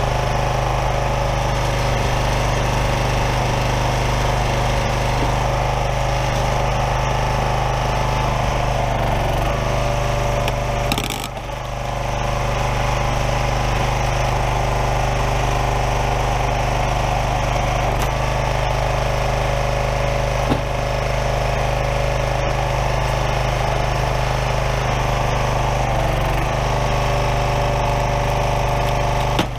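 Small gas engine of a Craftsman 27-ton log splitter running steadily while its hydraulic ram drives the wedge through a large firewood round. The engine note dips briefly about a third of the way in, and there is one short sharp click a little past halfway.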